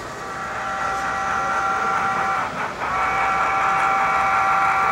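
Model steam locomotive's sound-system whistle blowing two long blasts, a chord of several steady tones with a short break between them about halfway through.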